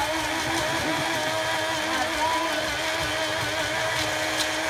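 Small personal blender running, its motor whining at a steady pitch as it crushes ice into shaved ice.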